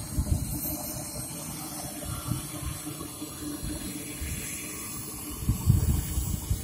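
Evojet 220 model jet turbine running at low power with a steady hiss while the model taxis. Wind rumbles on the microphone throughout, in gusts that are strongest about two-thirds of the way through.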